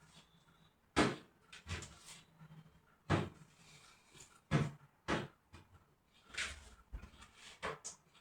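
Household cleaning sounds: a series of sharp knocks and clacks from things being handled and set down, about seven in eight seconds, irregularly spaced.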